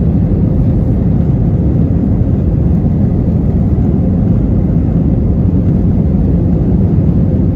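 Airbus A320-family jet airliner on its takeoff roll, heard from inside the cabin: the engines run at takeoff power, a loud, steady rumble.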